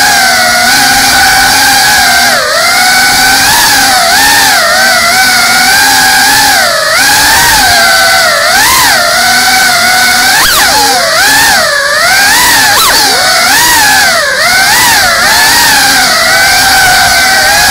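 Motors and propellers of a small FPV quadcopter whining loudly, heard close up from the drone's own onboard camera; the pitch swoops up and down constantly with the throttle as it manoeuvres, with quicker dips and rises about ten to thirteen seconds in.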